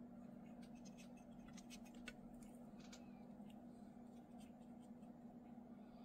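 Near silence: room tone with a steady low hum and a few faint, short ticks and scratches, most of them in the first half.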